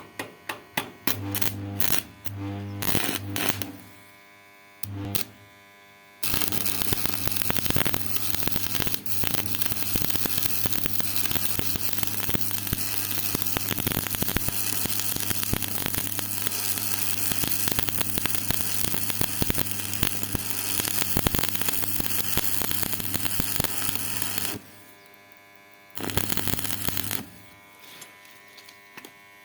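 Electric arc welding: the welding machine buzzes with a mains hum while the electrode arc crackles and hisses. First come several short arc strikes, then a continuous weld run of about eighteen seconds, then one more short burst near the end.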